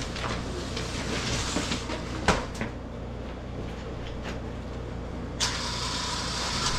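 An engine idling with a steady low hum, with a sharp knock about two seconds in and a steady hiss that starts suddenly near the end.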